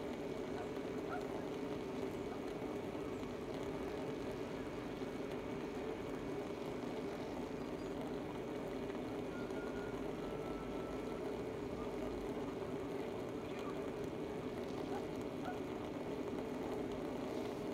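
Steady background hum of a town, like distant traffic, with a few faint, brief chirps here and there.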